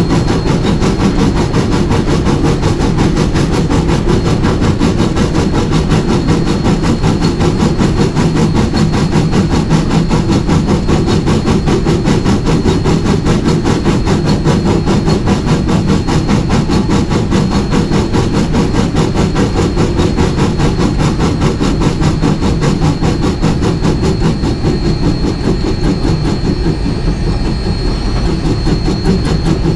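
Rio Grande Southern No. 20, an 1899 4-6-0 ten-wheeler steam locomotive, running steadily along the track. A dense, rapid, even rhythm keeps up throughout, with a faint steady high tone underneath.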